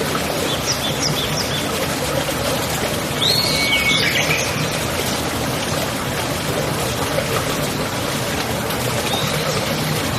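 Small birds chirping in short rising and falling calls over a steady rush of running water. The chirps come about a second in, again around three to four seconds in, and faintly near the end.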